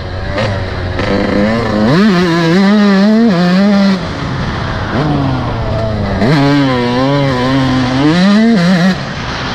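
Dirt bike engine, heard close from the rider's helmet, revving up hard twice, about two seconds in and again about six seconds in. Each time the revs hold high and waver for a couple of seconds, then drop back as the throttle is rolled off, with lower revs in between.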